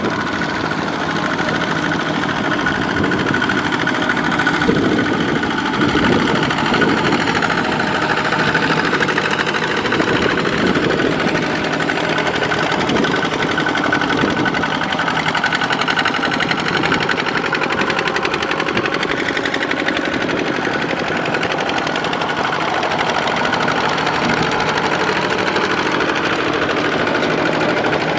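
Single-cylinder diesel engines of two-wheel walking tractors, Kubota ZT120 type, running steadily under load as they haul trailers of rice sacks through deep mud.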